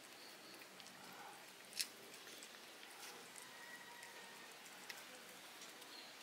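A domestic cat licking a creamy paste treat from a squeeze tube: faint, soft, wet licking clicks, with one sharper click about two seconds in.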